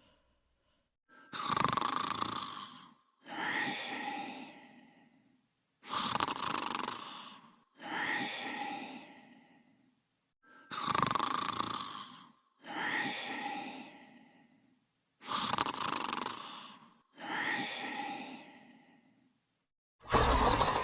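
Cartoon snoring: a long in-and-out snore cycle repeated four times in an even rhythm, each breath fading away before the next. A louder, different sound cuts in near the end.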